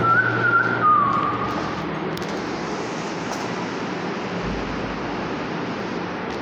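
A two-note whistle, a held higher note that drops to a lower one, lasting about a second and a half near the start, over steady background noise.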